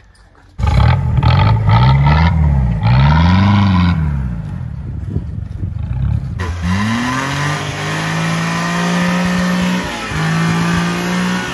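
Old car engines revved in turn at the exhaust: two quick blips that rise and fall, then a cut to another engine that revs up and is held at high revs, dipping briefly near the end.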